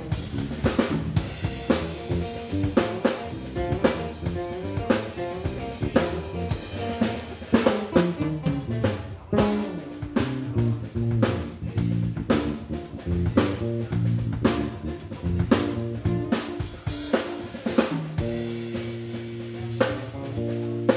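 Live band playing: drum kit to the fore with snare and kick drum hits and cymbals, over electric guitar. Sustained low notes come in near the end.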